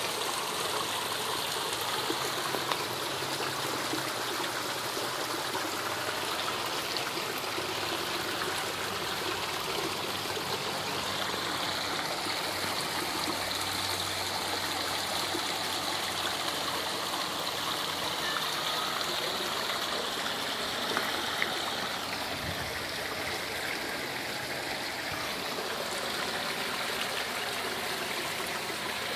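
Steady trickling and splashing of water running into a small backyard pond from a pump outlet, frothing the surface.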